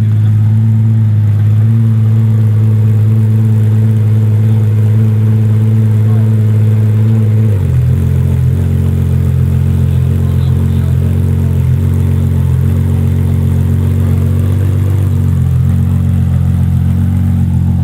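A car engine running steadily at idle close by, its note holding one pitch and then dropping to a lower, fuller note about seven and a half seconds in.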